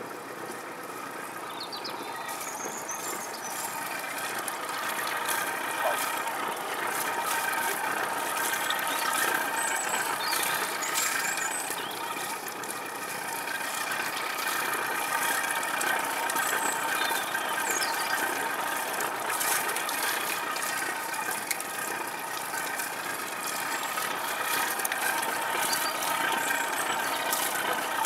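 A steady mechanical whine made of several fixed high tones, with scattered clicks and a few short high chirps over it.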